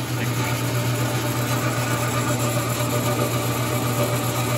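Logan 922 metal lathe running steadily with a strong low hum, its tool turning a bar lubricated with lard-based cutting oil that is smoking at the cut.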